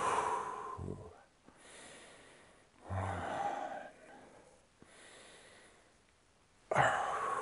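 A man breathing hard through the strain of holding a one-legged yoga balance pose: three loud exhales about three seconds apart, with quieter breaths between.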